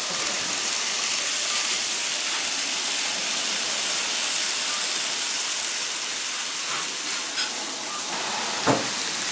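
N gauge model trains running on the layout track: a steady hissing rattle of wheels and motors, with one short knock near the end.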